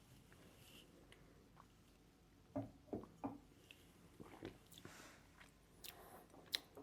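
Faint mouth sounds of someone tasting whisky: a few soft sips and smacks a little over halfway through, then small scattered clicks of the mouth.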